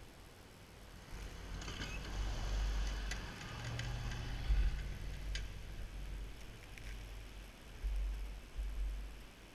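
Pickup truck with a front snowplow blade driving past through fresh snow: the engine runs and the blade and tyres scrape and crackle through the snow, loudest from about two to five seconds in, over a low rumble that goes on after the truck has passed.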